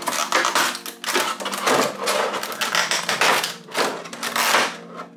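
Clear plastic blister packaging crackling and crinkling in repeated bursts as hands pull it apart to free a vinyl figure.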